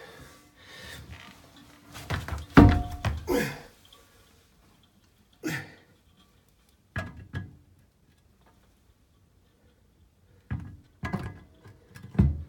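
A heavy porcelain toilet being dropped onto its floor flange and rubber seal: a loud thunk with scraping about two seconds in, then a few lighter knocks as it settles and rocks slightly, still a little wobbly on the floor.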